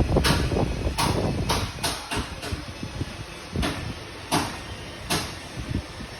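A run of irregular metallic knocks and clanks, about ten in six seconds, more closely bunched in the first half, over a low background rumble: hand tools and parts being handled during work on the engine.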